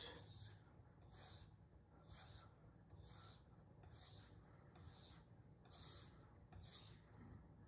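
Santoku kitchen knife edge drawn dry, without water, across a 25-micron diamond resin sharpening plate in trailing-edge strokes that set the bevel at the tip: a faint scraping hiss repeating about once a second.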